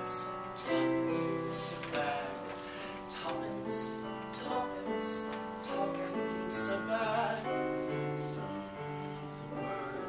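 A slow ballad sung with piano accompaniment: long held notes stepping from one to the next, with a few short hissing consonants.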